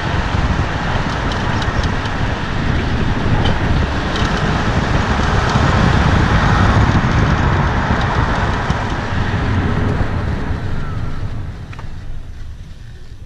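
Road, tyre and wind noise of a 2014 Tesla Model S being driven, steady, with a few faint clicks about four seconds in and quieter near the end.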